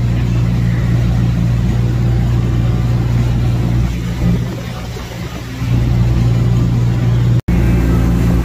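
A motor yacht's engines running under way, a steady low drone. It eases off briefly about halfway through and cuts out for an instant near the end.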